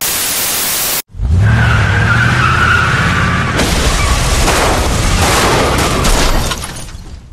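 A burst of loud static hiss for about a second, then a motor vehicle's engine running loud with a rising low hum and noise over it, fading out near the end.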